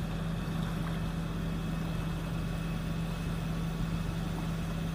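Tow truck engine running at a steady speed with a constant low hum while it winches a submerged ute out of the water.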